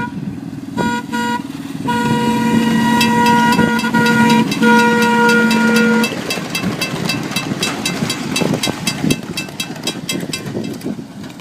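Horn of a miniature ride-on train sounding one steady note: two short toots, then a long blast broken once, about four seconds long. Through and after the long blast comes a rapid run of sharp clicks as the train passes.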